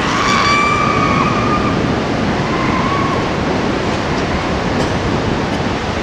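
Steady rushing roar of whitewater rapids in the Bhote Koshi gorge below. Over it a long high yell rises in at the start and holds for about a second and a half, with a shorter one about three seconds in.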